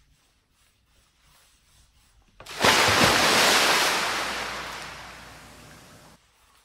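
A loud rushing noise that starts suddenly about two and a half seconds in, fades steadily for about three seconds and then cuts off abruptly.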